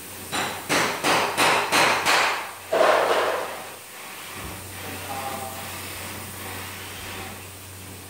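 A quick run of about six sharp knocks, roughly three a second, then one louder, longer knock, over a steady hiss.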